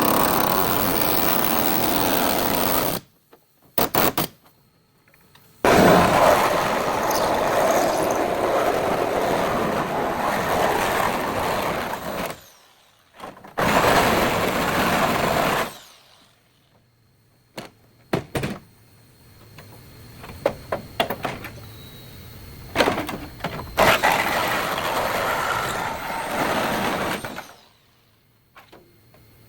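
Body-repair tool noise on a car's damaged rear end: several steady, hissing, grinding runs a few seconds long that start and stop abruptly. Scattered clicks and knocks fall between the runs.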